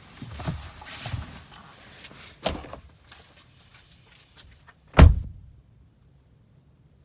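A car door opening and being slammed shut, heard from inside the car: shuffling, a click about two and a half seconds in, then one loud heavy thud about five seconds in, after which it goes quiet.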